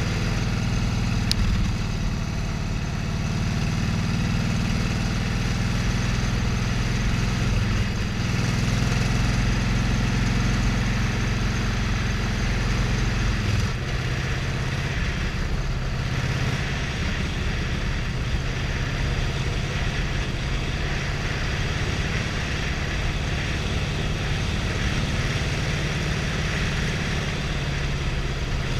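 Motorcycle engine running steadily while the bike is ridden along a road, with wind and road noise over it; the engine note drops a little about halfway through.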